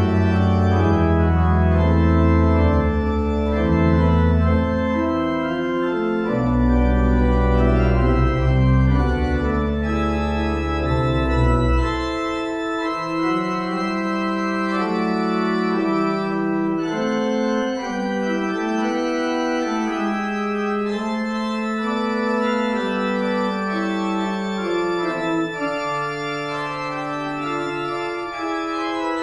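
Church organ playing offertory music in slow, held chords. Deep bass notes sound under the chords until about twelve seconds in, then drop out, leaving the higher voices.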